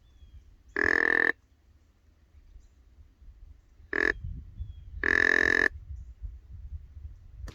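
Deer grunt call blown three times to imitate a buck: a half-second grunt, a short one about three seconds later, then a longer one, each a buzzy pitched note.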